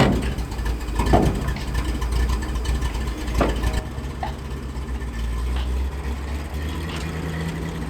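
An engine running steadily at low revs, with a couple of sharp clanks about one and three and a half seconds in.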